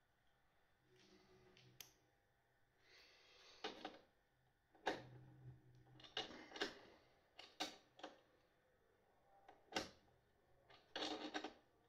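Faint, scattered clicks and knocks of small hardware and hand tools being handled while parts are fitted to a battery case's front panel, with a few short bursts of rustling.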